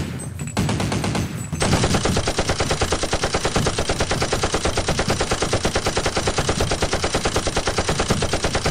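Rapid automatic gunfire, a steady even stream of shots at roughly ten a second, starting about a second and a half in.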